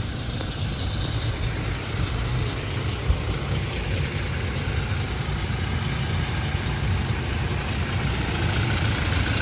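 Toyota Fortuner SUV engine idling steadily, a low even rumble.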